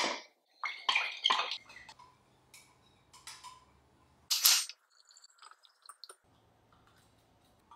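Kitchen utensil sounds: a metal spoon scraping and clinking against a ceramic bowl and a glass measuring jug, in a string of short scrapes and clinks, the loudest a brief sharp one about four and a half seconds in.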